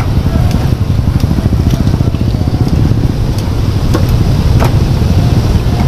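A steady, loud low rumble with a few sharp, light clicks of steel scissors and tongs cutting fried chicken.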